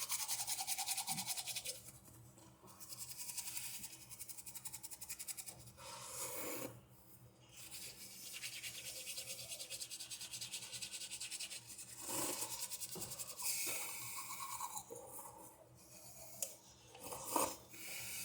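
Toothbrush scrubbing teeth with rapid back-and-forth strokes, in several spells broken by short pauses.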